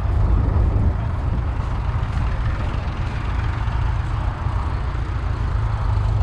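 Tractor engine running steadily with a deep, continuous rumble.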